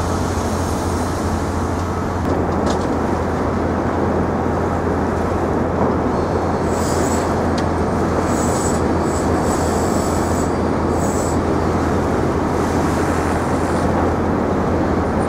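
A train running, a steady loud rumble, with high squeals coming and going from about six to eleven seconds in.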